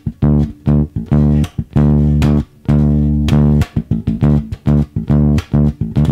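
Electric bass guitar played with the fingers: a simple line of a note or two, held and then cut off sharply, broken up by short muted dead notes. The dead notes make the line a percussive rhythm.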